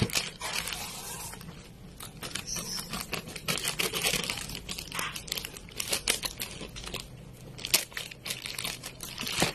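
Plastic courier mailer bag crinkling and crackling in irregular bursts as it is handled and torn open, with scissors cutting into it near the end.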